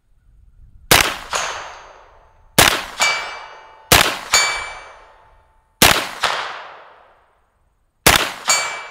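Five single 9mm shots from a PSA AK-V9 pistol-caliber carbine, unevenly spaced. Each shot is followed about half a second later by the clang of the bullet striking a steel target plate at about 85 yards, which keeps ringing at several pitches.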